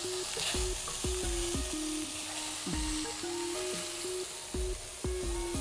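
Prawns and vegetables sizzling steadily in a hot stainless steel wok as they are stirred with a wooden spatula.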